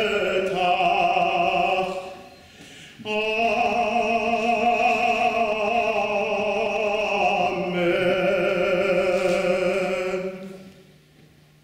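A male cantor singing Jewish liturgical chant solo and unaccompanied, in long held notes with a wide vibrato. He breaks for breath about two seconds in, and the singing ends shortly before the end.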